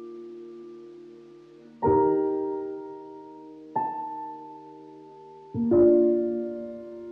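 Background music: slow, soft piano chords, three struck a couple of seconds apart and each left to ring and fade, the last the loudest.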